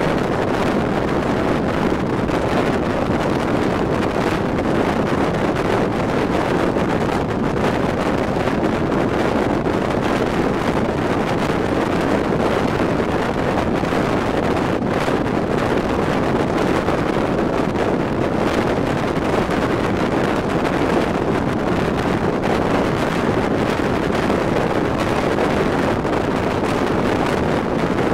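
Steady rush of wind and rolling noise from the Thello EN221 night train running at speed, heard at an open carriage window with wind on the microphone.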